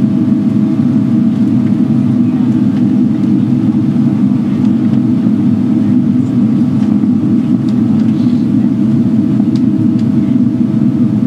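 Cabin noise inside a Boeing 777-300ER airliner in flight: an even, steady low rumble of engines and rushing air, with a faint steady hum above it.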